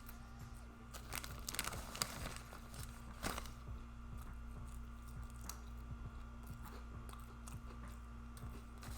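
Close-miked eating: a few loud crunchy bites in the first few seconds, then softer chewing.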